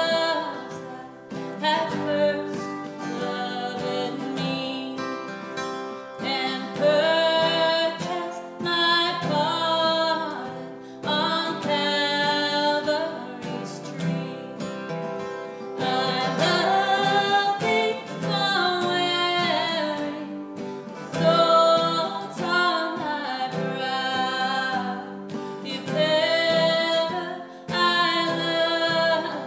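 A woman singing a worship song with two acoustic guitars playing along.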